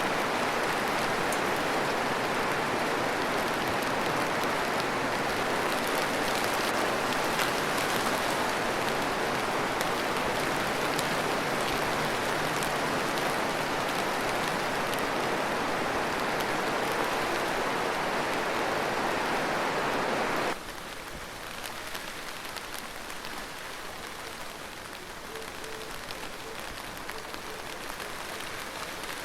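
Steady, dense heavy rain. About two-thirds of the way through it cuts off suddenly to a quieter, lighter rain.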